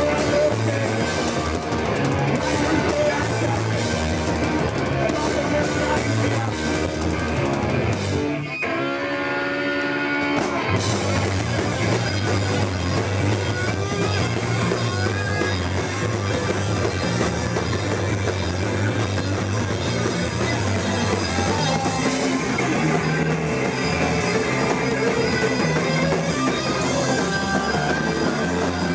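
Hardcore punk band playing live, with distorted guitar, bass and fast drums and cymbals. About eight seconds in, the drums drop out for two seconds while a held guitar chord rings on its own, then the full band comes crashing back in.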